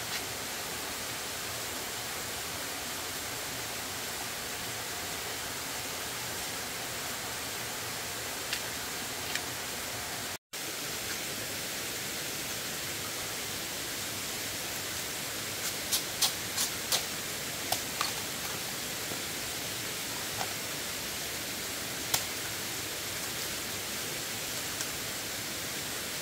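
Steady rushing hiss with a few sharp clicks and taps, most of them bunched a little past the middle; the sound cuts out for an instant about ten seconds in.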